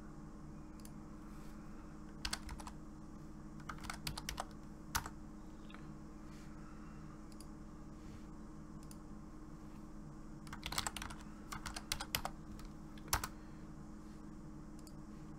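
Computer keyboard typing and key clicks in short bursts: a couple of seconds in, again around four to five seconds, and from about ten and a half to twelve seconds, with one sharp click about thirteen seconds in. A steady low hum lies underneath.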